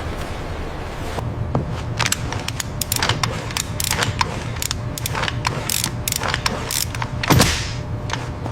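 Factory machinery clicking and clacking irregularly over a steady low hum, with a brief whoosh about seven seconds in.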